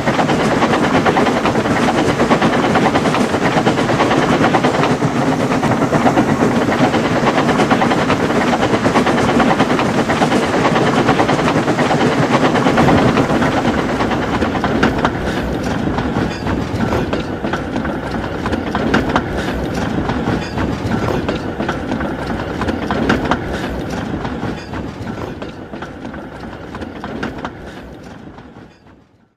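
Train sound effects: a train running on the rails, loud and steady at first, then with a run of clicks as it gradually fades away in the second half.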